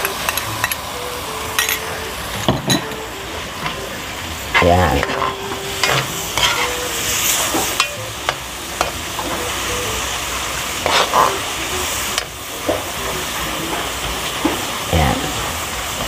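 Sauté sizzling in a metal wok while a metal spatula stirs and scrapes mashed fermented tofu and black beans against the pan, in repeated short strokes.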